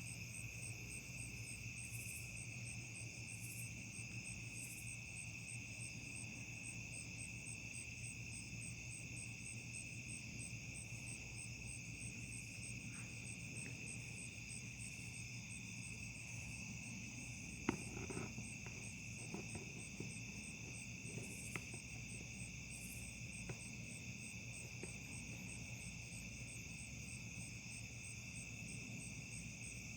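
Night insect chorus of crickets: several steady, overlapping trills at different high pitches, one pulsing at an even rate, over a low steady hum. A sharp click about eighteen seconds in is followed by a few softer ones over the next few seconds.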